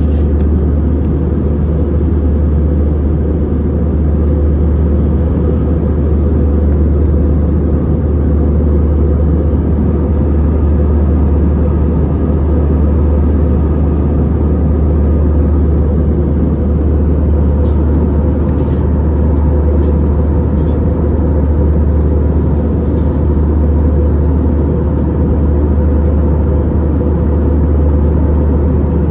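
Steady cabin drone of an Airbus A320neo airliner in flight, engine and airflow noise heard inside the cabin at a window seat. It is a deep, unchanging rumble.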